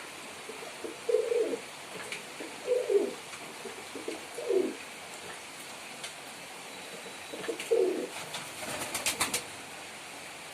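Male domestic pigeon cooing: four low, falling coos spaced about a second and a half apart. A quick run of sharp taps follows a little before the end.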